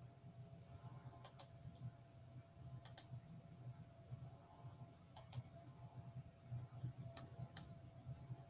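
Four pairs of short, light clicks about two seconds apart, from a computer being operated at a desk, over a faint steady hum of room tone.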